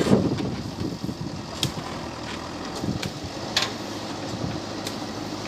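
JCB 3DX backhoe loader's diesel engine running steadily, louder in the first half second and then settling to an even hum. A few sharp clicks or knocks sound over it, the clearest about one and a half and three and a half seconds in.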